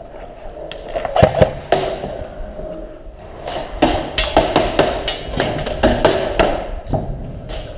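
Airsoft guns firing: sharp cracking shots, a few single ones in the first two seconds, then a fast, irregular string of about four a second in the middle, and a couple more near the end.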